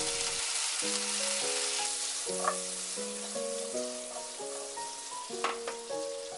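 Whole garlic cloves and asparagus sizzling in butter and soy sauce in a frying pan over high heat, the sizzle slowly fading. Two sharp clicks, about two and a half and five and a half seconds in. A soft background melody of simple held notes plays throughout.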